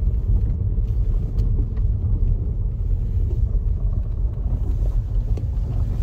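Steady low rumble of a car rolling slowly over a gravel driveway, heard from inside the cabin.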